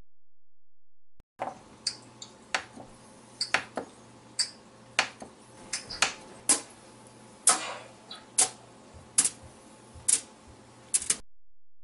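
Cubes of butter set down one at a time on an aluminium-foil-lined baking pan: about a dozen light, irregular taps and foil crinkles, starting about a second and a half in, over a faint steady hum.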